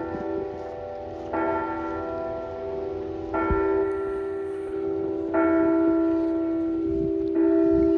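Tower bell tolling the hour: a single stroke every two seconds, always at the same pitch, each ringing on until the next. Four strokes, growing somewhat louder toward the end.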